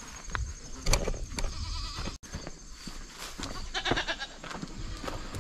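Nigerian dwarf goats bleating: a couple of short, wavering bleats.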